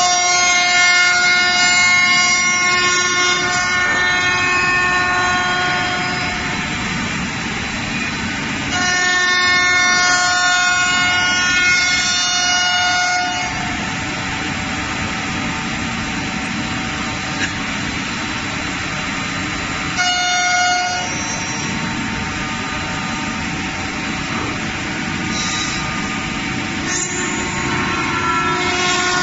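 5-axis CNC router spindle cutting hardwood: a high-pitched whine with several overtones while the cutter is in the wood, for the first six seconds and again from about nine to thirteen seconds, with a short burst near twenty seconds, over a steady machine rush.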